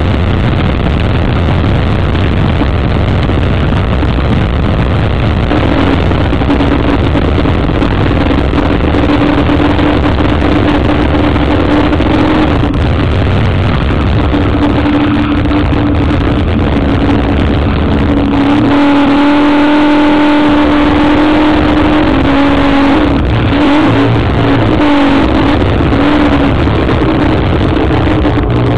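Offshore racing powerboat's engines running hard, recorded on board, under a loud rushing noise. A steady engine drone sits through it, and from about 18 seconds in the deep rumble drops away and the engine note rings out with clear overtones.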